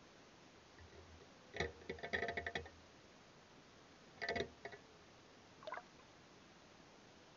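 Faint underwater hiss picked up through a waterproof action camera's housing, broken by three short bursts of clicking and knocking: the longest about a second and a half in, another past the four-second mark, and a faint brief one near the end.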